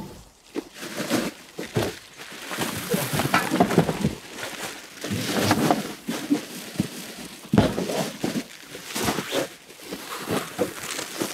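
Plastic shopping bags rustling and goods clunking as they are lifted out of a car's open boot: an uneven run of crinkles and knocks.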